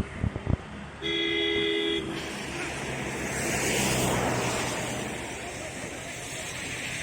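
A vehicle horn sounds once for about a second. Then a motor vehicle runs past with a rushing noise that swells and fades, over a steady engine note. A few low thumps come at the very start.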